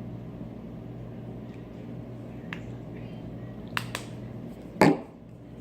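Slime being handled with activator: a few small sharp clicks, then one louder short squelching snap about five seconds in, over a steady low hum.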